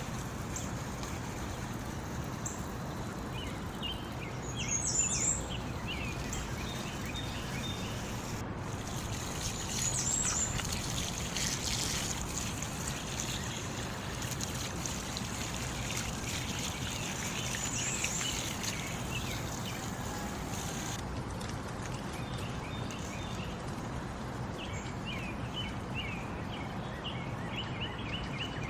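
Small birds chirping and twittering over a steady wash of running water, the background changing abruptly twice.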